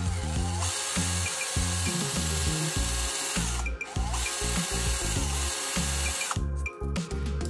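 CMI cordless drill running in two spells of about three seconds and two and a half seconds, with a brief stop between them.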